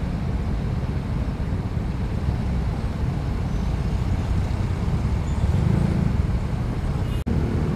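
Steady low rumble of a motorcycle on the move, with wind and road noise on the rider's action-camera microphone. The sound cuts out for an instant about seven seconds in.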